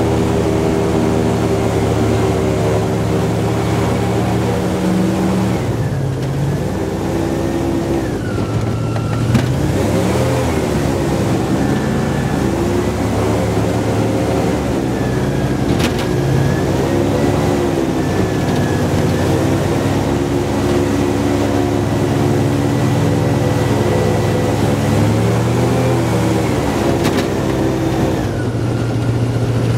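Airboat engine and air propeller running loud and steady, the pitch rising and falling several times.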